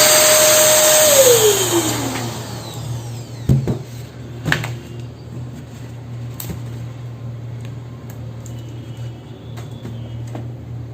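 Electric balloon pump running, then switched off about a second in, its motor whine gliding down as it winds down. A few light clicks or knocks follow over a low steady hum.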